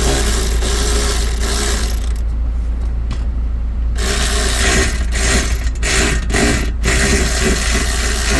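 Nuts being run down onto studs with a tool, in two stretches of steady mechanical whirring and clicking: about two seconds, then a pause, then about four seconds broken by several short stops.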